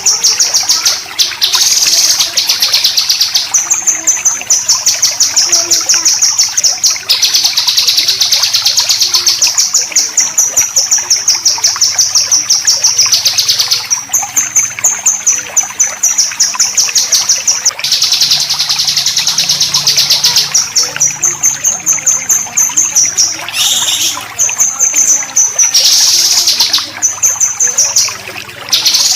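A songbird gives 'besetan', the harsh rasping call used in bird-training recordings: long runs of very rapid, high-pitched scratchy notes, many a second, broken by short pauses.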